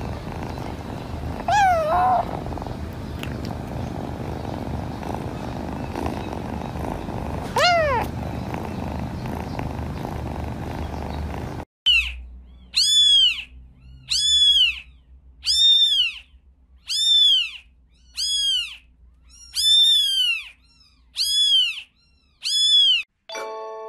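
Low steady cat purring with two short rising kitten mews. After a cut comes a run of about ten high-pitched mews, evenly spaced roughly once a second.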